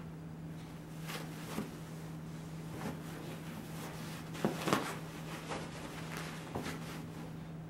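Soft rustles and scattered light knocks as a Pembroke Welsh Corgi puppy wriggles and rolls about on a cushioned dog bed, the loudest cluster about halfway through, over a steady low hum.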